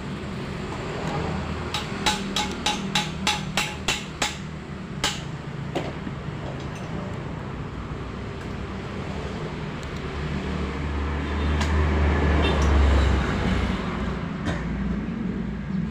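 A quick run of about eight sharp clicks, roughly three a second, then a few single clicks, from the opened-up Vertex A3 mountain-bike trigger shifter being handled. Later a vehicle's low rumble swells and fades under a steady background motor hum.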